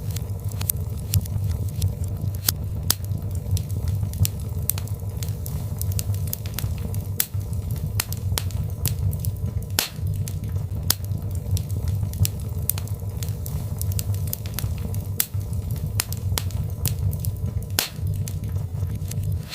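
Birchwood fire burning: a steady low rumble with irregular sharp crackles and pops, several a second.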